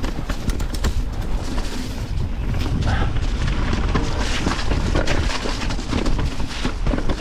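Mountain bike riding over rough, rooty and rocky trail: wind buffeting the action-camera microphone with tyre rumble and a run of sharp clattering knocks as the bike rattles over roots and rocks.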